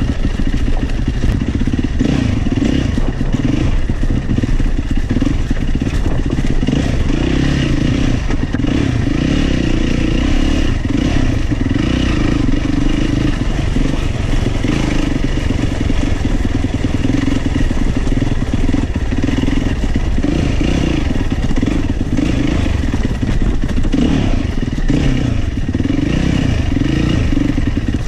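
Single-cylinder four-stroke enduro dirt bike engine running under riding load, its note shifting up and down with the throttle, with some clatter from the bike over rough ground.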